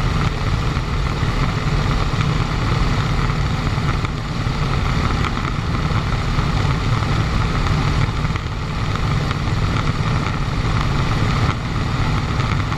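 Vintage warbird's piston engine droning steadily in flight, heard from inside the cockpit with rushing air over the canopy.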